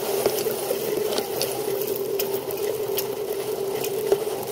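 Sailing yacht heeled over in strong wind: a steady hum with frequent small clicks and rattles from the rigging and the flapping headsail as it is furled, and one sharper knock near the end.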